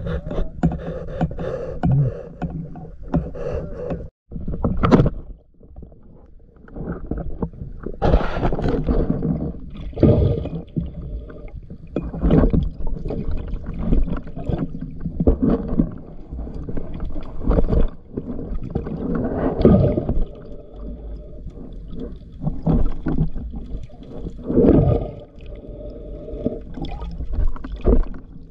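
Muffled water sloshing and bubbling picked up by a camera underwater, coming in irregular surges every second or two, with a brief dropout about four seconds in.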